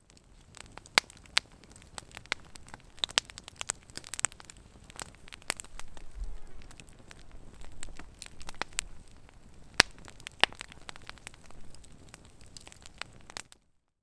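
Wood campfire crackling, with irregular sharp pops and snaps over a low hiss; it cuts off abruptly near the end.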